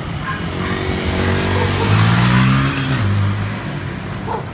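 A motor vehicle passing close by on the street, its engine note climbing for about two seconds and then dropping sharply a little under three seconds in, loudest as it goes past.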